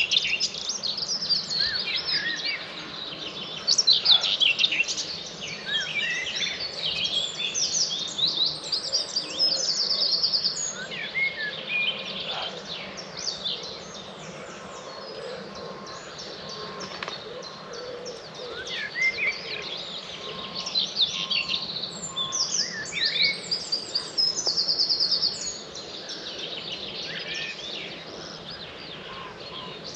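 Dawn chorus: many songbirds singing at once, with overlapping whistles, chirps and fast trills. A faint steady background noise runs underneath.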